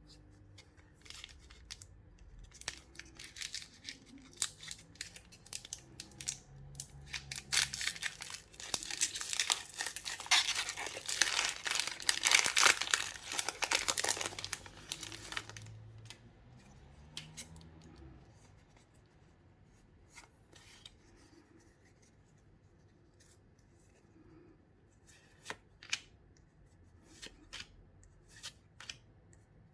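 Pokémon card box packaging being handled and torn open: a few seconds of scattered clicks, then a long, loud stretch of tearing and crinkling, then quieter handling with occasional sharp clicks.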